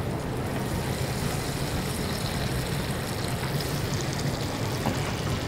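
Battered chicken pieces deep-frying in 170 °C oil in a countertop deep fryer: the oil sizzles and crackles steadily around the freshly dropped pieces, with a low steady hum underneath.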